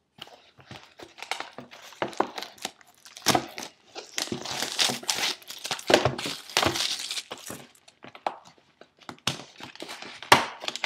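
Packaging of a new box of trading cards being unwrapped and opened: an irregular run of crinkling and crackling with small clicks, busiest in the middle.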